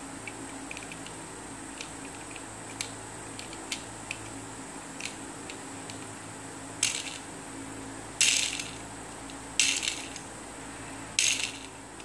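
The plastic rotating rings of a simple dimple fidget toy are flicked into spins, each a short rattling whir that fades out. This happens four times in the second half, after a few light plastic clicks from handling the toy.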